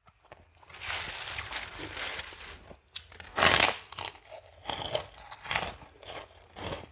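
Close-miked crunching of a large white rice cracker (kerupuk): a long crackling stretch from about a second in to nearly three seconds, the loudest crunch as the cracker is bitten about three and a half seconds in, then several shorter crunches while it is chewed.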